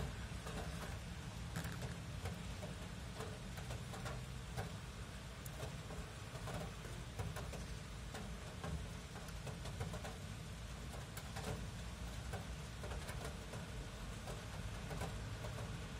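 Steady rain falling, with scattered close drops tapping and a constant low rumble underneath.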